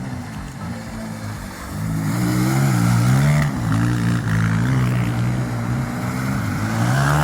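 ATV engine running under changing throttle, its pitch rising and falling as it revs; it gets louder about two seconds in.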